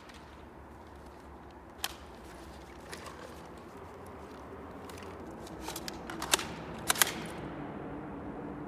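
G36-style electric gel ball blaster firing single shots: sharp, short snaps about two and three seconds in, then a few louder ones close together between about six and seven seconds in, over faint steady background noise.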